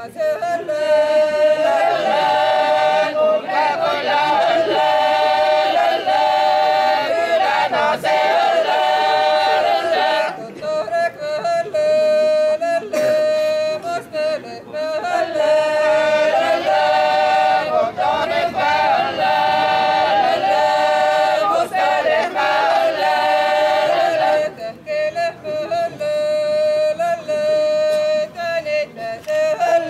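Seto leelo: a group of women singing in unaccompanied polyphony, a strong held note carrying the lower part and a higher voice sounding above it, in repeated phrases with short breaks for breath.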